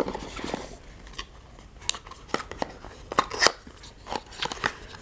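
Small thin-cardboard advent calendar box being handled and its flaps pulled open: scattered light rustles and clicks of paperboard.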